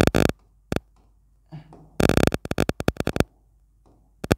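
Bursts of rapid clicking and tapping, each up to about a second long: a touch-screen smart board being worked as its page is cleared.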